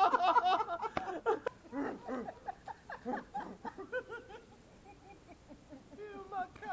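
A group of people laughing and chattering together, fading after about a second and a half to fainter, scattered voices and laughs.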